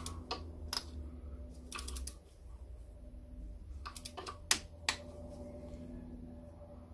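Click-type torque wrench tightening a cylinder head bolt: a handful of separate sharp metallic clicks, the loudest about four and a half seconds in.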